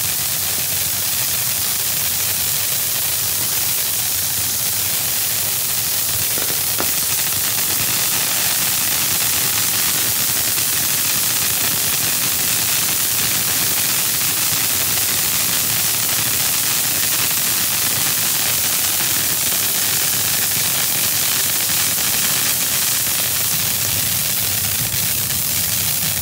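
Black Cat Wild Card 500-gram firework fountain spraying sparks with a steady hiss.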